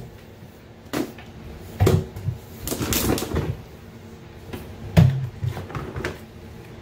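Handling noise: scattered knocks and clatter as a plate and other things are moved and set down on a table, with a scraping rustle about three seconds in and the loudest knock about five seconds in.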